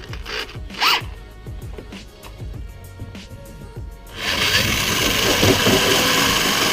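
Background music with light striking sounds; about four seconds in, a loud steady noise comes in abruptly and keeps on.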